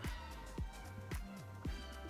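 Background music with a steady beat: a kick drum about twice a second over a stepping bass line.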